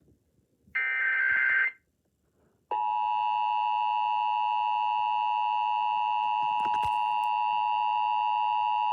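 Emergency Alert System broadcast over FM radio: the last of the digital SAME header data bursts, a buzzy one-second screech, then about three seconds in the steady two-tone EAS attention signal (853 and 960 Hz) starts abruptly. It signals that an alert, here the National Periodic Test, is about to be read.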